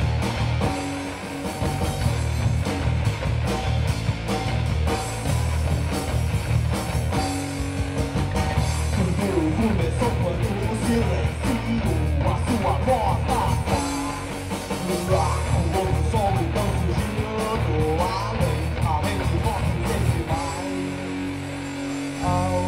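Rock music with guitar and a steady beat, with a voice singing through the middle stretch.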